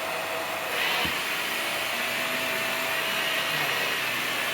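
Vacuum cleaner with a brush head running steadily on carpet. A higher-pitched whir joins in under a second in, as the brush is switched on, and there is a brief knock just after.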